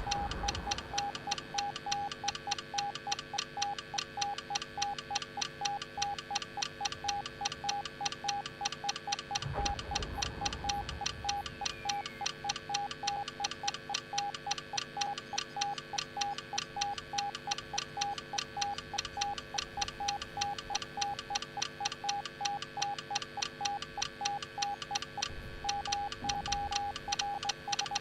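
Morse code sent as a single mid-pitched beep tone: a long, even run of short beeps, with a few longer dashes near the end. Two low thuds come about a third of the way in and near the end.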